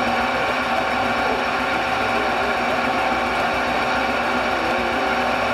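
A stationary steam engine running with its belt-driven circular saw spinning idle, giving a steady, even hum with no cutting.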